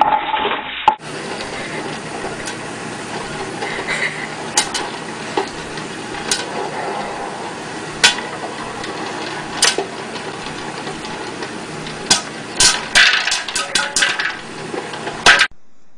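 Electric stirring popcorn popper running with a steady hum, its kernels popping in sharp cracks, a few at a time at first and then thick and fast near the end. A short loud clatter comes in the first second.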